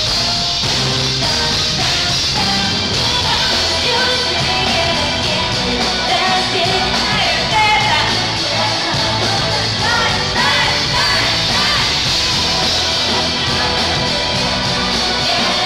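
Live pop-rock band playing with a female lead vocal singing over it, recorded loud in a concert hall.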